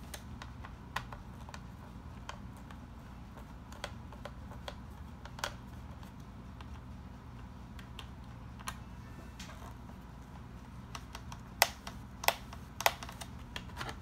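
Scattered small clicks and taps of a screwdriver undoing the screws of a laptop's plastic memory-cover panel, with a few sharper clicks near the end.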